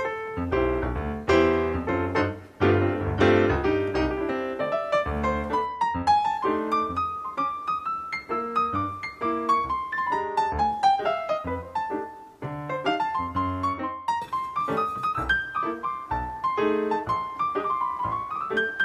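Background piano music: a light melody of quick notes over a bass line, with a falling run of notes about halfway through.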